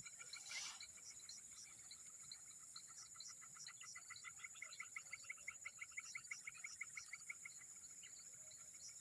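Faint swamp-forest wildlife: a steady high insect drone, joined from about three seconds in by a rapid trill of short calls, about eight a second, that stops about seven and a half seconds in. A brief rustle shortly after the start.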